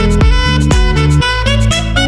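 Background music with a steady beat, about two beats a second, over a deep bass line and sustained melody notes.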